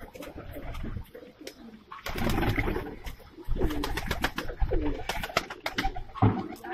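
Several Saharanpuri high-flyer pigeons cooing in a loft, with scattered short knocks and rustling among the calls.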